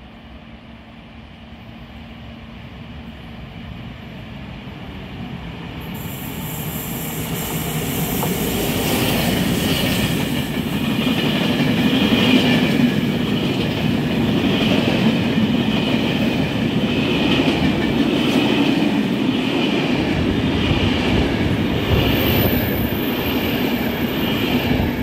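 A train hauled by diesel locomotive D220 038 with empty rail-carrying flat wagons, approaching and growing steadily louder, then passing close. The long run of wagons goes by with a repeated clatter of wheels on the rails.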